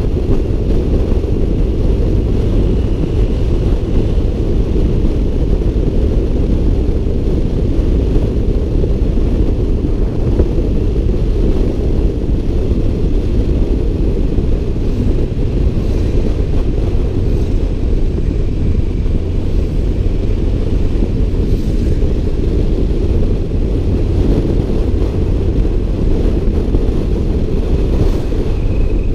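Steady low rumble of a motorcycle cruising at road speed, heard from a camera on the bike: wind on the microphone mixed with engine and tyre noise.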